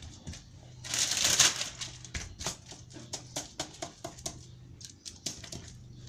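Gloved hands and a knife patting and pressing a round of raw minced meat flat on baking paper: soft, irregular taps throughout, with a brief rustle of the paper about a second in.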